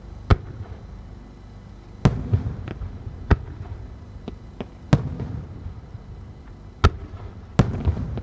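Aerial firework shells bursting one after another: about six sharp booms over eight seconds, each trailed by a low echoing rumble, with a few smaller cracks in between.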